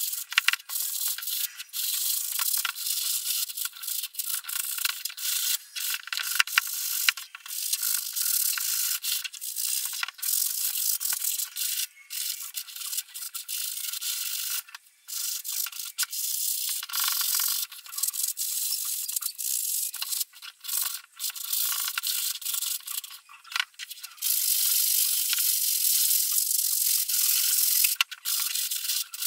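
A toothbrush's bristles scrubbing a white leather Nike Air Force 1 Low sneaker lathered with shoe cleaner, in rapid back-and-forth strokes with a few short pauses.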